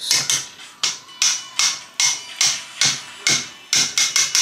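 Wire whisk beating a flour mixture for cookies in a stainless steel mixing bowl. The wires strike the metal bowl in a regular run of sharp taps, about two or three a second, coming a little faster near the end.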